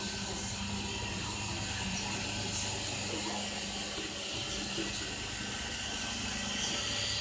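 iRobot Roomba robot vacuum running, its motor and brushes making a steady mechanical hum.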